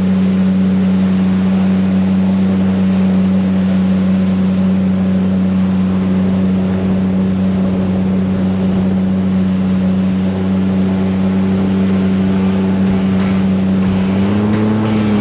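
Yamaha outboard engine driving an inflatable jet boat, running at a steady speed under a hiss of wind and water. Its pitch rises slightly near the end as the throttle is opened a little.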